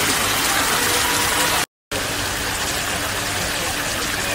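Garden fountain jets spraying and splashing into a pond: a steady hiss of falling water that cuts out briefly just before two seconds in.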